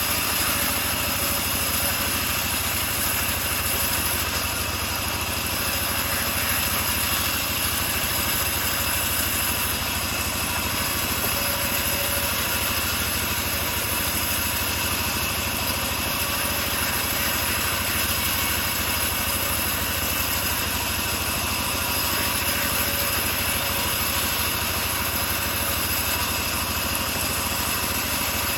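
Homemade engine-driven bandsaw mill running steadily, with an even engine drone and no change in speed.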